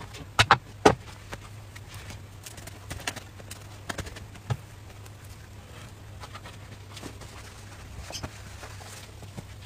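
Handling knocks of a plastic electric crepe maker and its batter dish on a wooden board: three sharp knocks within the first second, then scattered lighter clicks and taps, over a steady low hum.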